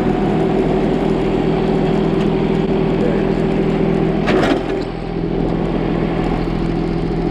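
Large John Deere tractor's diesel engine running steadily while it drags a pickup truck on a chain, with a brief clank about four seconds in.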